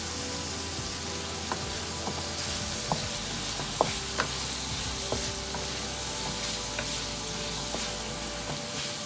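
Carrots and other vegetables sizzling as they stir-fry in a hot pan, with a utensil clicking and scraping against the pan every second or so as they are stirred.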